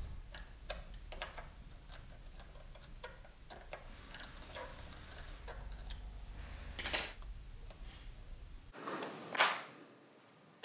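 Small metal clicks and scrapes of a hand tool working inside a Harley Sportster front master cylinder as it is taken apart, with two sharper clicks, one about seven seconds in and a louder one just after nine seconds.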